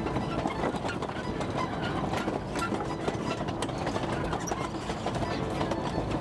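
Loaded sugar cane wagons rolling slowly on a narrow-gauge cane railway: a steady rumble with scattered clicks and knocks from the wheels and couplings.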